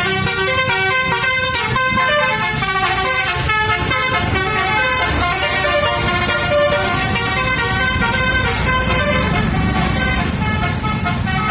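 Bus basuri telolet horn, a musical multi-trumpet horn, playing a melody of quickly changing notes over the bus's low engine rumble.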